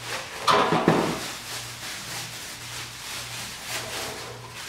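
A plastic garbage bag rustling and crinkling as a whole raw turkey is pushed down into it, with a louder bump about half a second in.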